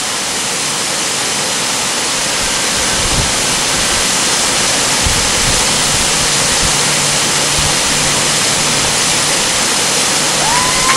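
Steady rushing of a waterfall, a continuous even hiss that grows slightly louder over the first few seconds.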